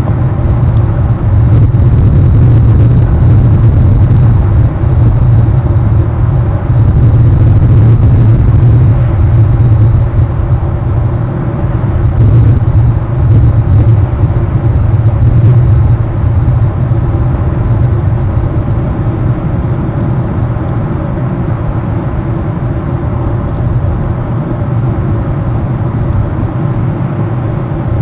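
Strong wind buffeting an outdoor webcam microphone: a loud, steady low rumble that surges and eases.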